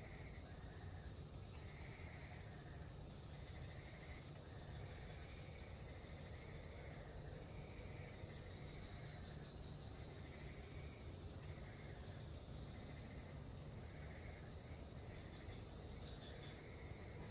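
Night insects, crickets or similar, chirring steadily in a continuous high-pitched drone, with a softer call repeating about once a second beneath it.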